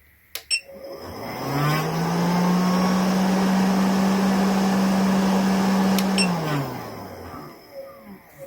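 A DC motor powered from a bench power supply set to 12 volts, 6 amps. After two clicks it spins up with a rising hum, runs steadily with a loud whirring noise, then winds down in pitch and fades a little after six seconds in.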